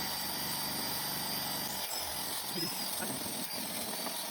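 Electric woodworking power tool running steadily, its high whine dipping briefly now and then as it cuts.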